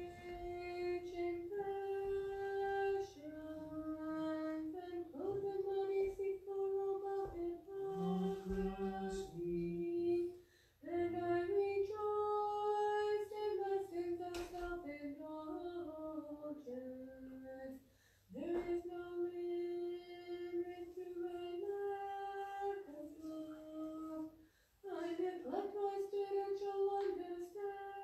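A single female voice chanting an unaccompanied Orthodox liturgical hymn. She holds long notes and steps between a few close pitches, phrase by phrase, with short breaths between phrases.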